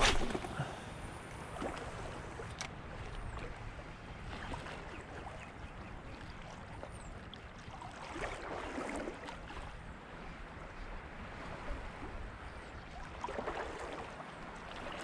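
Small waves lapping and gurgling against shoreline boulders, swelling a couple of times, over a low rumble of wind on the microphone. A sharp click at the start.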